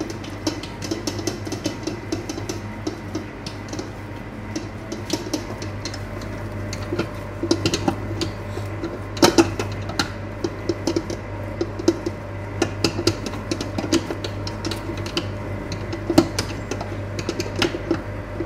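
Commercial planetary stand mixer running, its beater working a brisé dough of flour, butter, milk and egg yolk, with a steady low motor hum. Background music plays over it, with scattered sharp knocks, the strongest about nine and sixteen seconds in.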